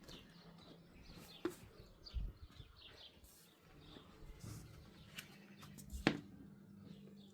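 Faint outdoor background with a few short bird chirps, a low steady hum and scattered sharp clicks, the loudest a knock about six seconds in.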